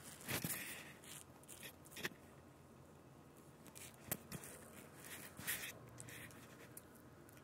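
Feather double-edge safety razor scraping stubble through shaving lather on the neck: several short, faint strokes with gaps between them, the loudest about half a second in.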